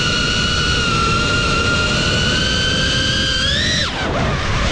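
FPV quadcopter's motors whining at a steady pitch, which climbs briefly about three and a half seconds in, then drops sharply as the sound dips for about a second before picking up again near the end.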